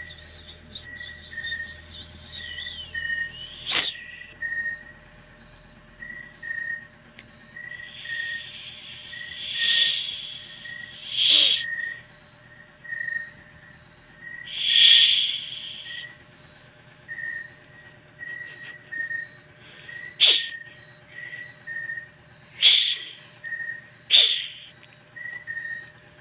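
A cat hissing about seven times in short, sharp bursts of noise, two of them longer. Underneath runs a steady chirping of crickets, about two chirps a second.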